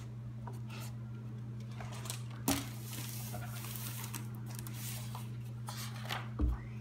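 A picture book handled on a tabletop: a knock as it is laid down about two and a half seconds in, then paper rustling, and pages flipped with soft thumps near the end. A steady low hum runs underneath.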